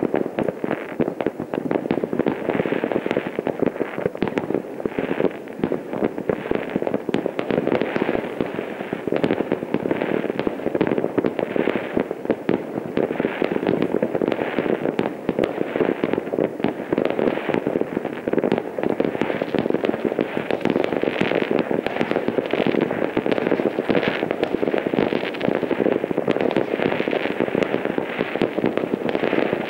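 Many fireworks and firecrackers going off all over a town at once: a dense, unbroken crackle of overlapping bangs and pops.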